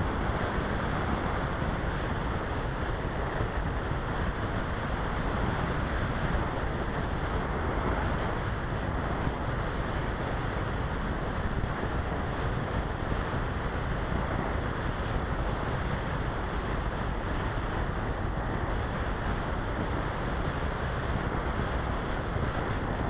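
Steady rush of airflow over the microphone of a small keychain camera mounted on a flying RC model glider.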